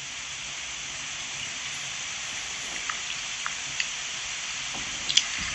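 Steady hiss of a digital voice recorder playing back a stretch of its recording with no voice on it, through its small speaker, with a few faint ticks. It is the recorder's own noise in the pause left for a spirit to answer, and no voice comes through.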